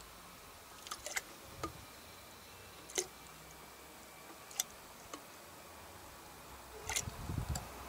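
A metal tablespoon clicking lightly against a plastic watering can and bottle neck as liquid fertilizer is measured out spoonful by spoonful, about eight sharp little clicks at irregular intervals. There is a brief low handling rumble near the end.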